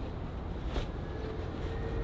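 Laundry being hung out: a large cotton sheet being handled on a metal drying rack, with one sharp cloth flap a little under a second in, over a steady low outdoor rumble. A faint steady hum starts about a second in.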